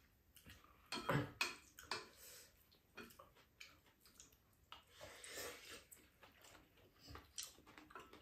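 Eating sounds at a shared meal: chopsticks and spoons clicking and scraping against ceramic bowls, with chewing in between. The loudest clatter comes about a second in.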